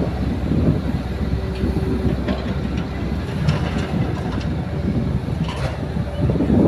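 Kobelco hydraulic excavator running, its diesel engine giving a steady low drone as it swings and raises its boom, with a few light clicks and clanks along the way.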